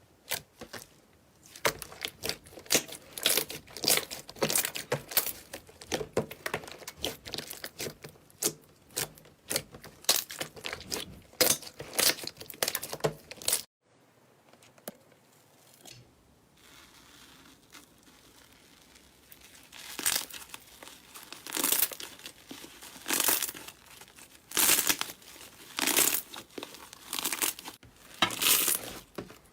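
Slime being squeezed and pressed by hand, giving a dense run of sharp crackles and pops. The sounds drop out briefly about fourteen seconds in, then resume with fewer, louder pops.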